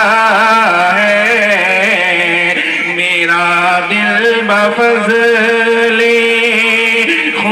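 A man singing an Urdu devotional poem solo through a microphone, drawing out long held notes with wavering ornaments on them.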